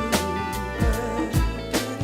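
Instrumental soul music with guitar, bass and a steady drum beat.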